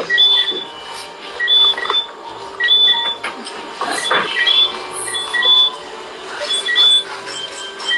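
Electronic beeping: a short figure of high, steady beeps that repeats about every second and a quarter, over a low steady hum.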